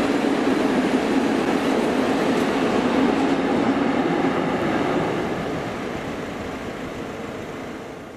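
Freight train of open coal wagons rolling past, a steady rumble of wheels and wagons that fades away over the last three seconds as the train draws off.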